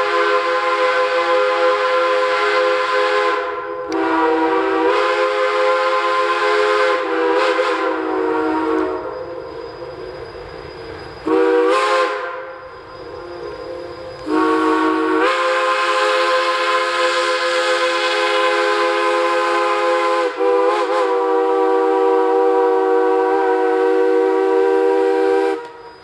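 Shay steam locomotive's chime whistle blowing a series of loud blasts, several notes sounding together. It gives two long blasts, then a few short toots and a short blast, and ends with one long blast of about eleven seconds. The pitch slides as each blast opens and closes.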